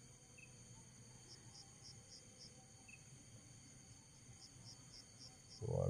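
Night insects: a steady high-pitched insect drone, with a cricket chirping in two short runs of about five chirps, about four a second.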